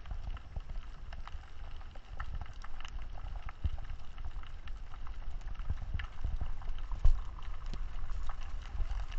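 Underwater sound picked up by a GoPro in its waterproof housing: a low rumble of water moving past the camera, with many scattered sharp clicks and crackles. One louder knock comes about seven seconds in.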